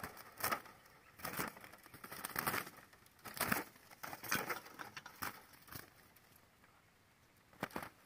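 Dry rustling and crackling of a handmade bamboo-stick bird cage being handled and worked open, in irregular short bursts for about six seconds, then quieter.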